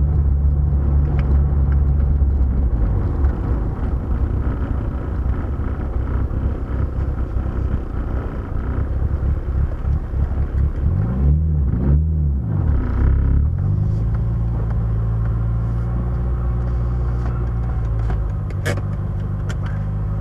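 Car engine running at a steady idle, then rougher for several seconds. It revs up and back down twice in quick succession, then settles back to a steady idle. A few sharp clicks come near the end.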